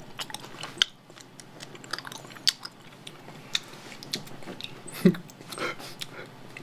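Close-miked chewing of raw honeycomb: a scatter of small wet clicks and smacks from the mouth, with a few louder smacks, and a brief low mouth sound about five seconds in.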